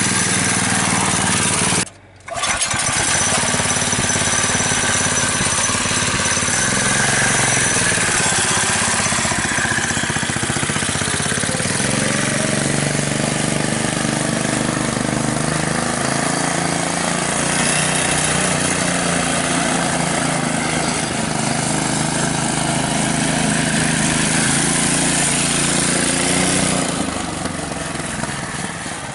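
Mini bike's small engine, fed by an ATV carburettor and driving through a CVT, running steadily. There is a brief break in the sound about two seconds in, the engine note shifts about twelve seconds in, and it gets quieter near the end.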